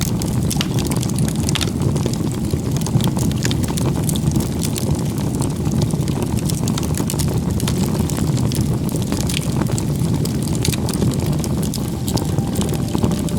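Wood fire burning, with irregular sharp crackles and pops over a steady low rushing noise.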